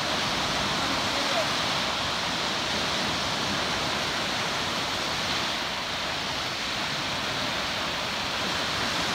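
Lake Huron waves breaking on a sandy shore: a steady wash of surf.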